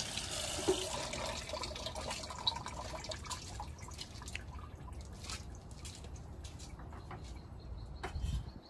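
Cooking oil heating in a large pan on an outdoor gas burner, hissing and crackling with scattered small pops as it heats toward smoking. A steady low rumble lies underneath, and there is a single low thump near the end.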